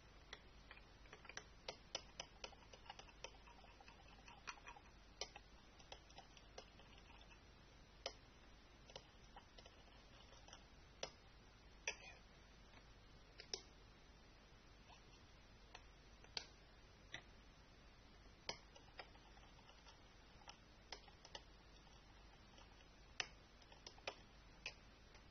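Homemade slime being squeezed and poked by hand, giving irregular small sticky clicks and pops over a low hum.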